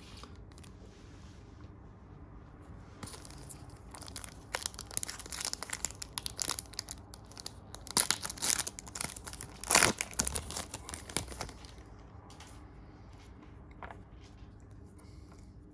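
Trading card pack wrappers being torn open and crinkled by hand. There is a crackling stretch starting about three seconds in, with two loudest rips in the middle, and it dies down a few seconds before the end.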